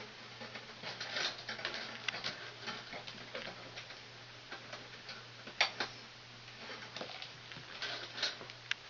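Small irregular clicks and rustles of insulated wires being handled and twisted together into a plastic wire nut, with one sharper click about five and a half seconds in. A faint steady low hum runs underneath.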